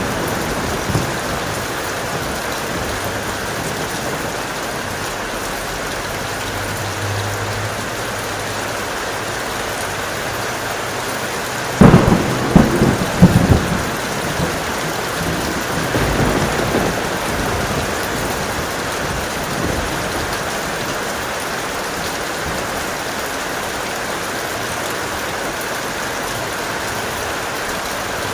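Steady heavy rain. About twelve seconds in a sharp, loud thunderclap breaks and rumbles for a couple of seconds, with a fainter rumble of thunder a few seconds later.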